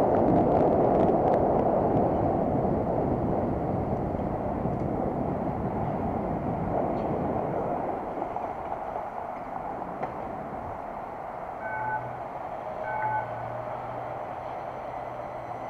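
Wind and road noise of a moving bicycle on the handlebar camera's microphone, fading away as the bike slows to a stop. Near the end, two short electronic beeps about a second apart over a low hum.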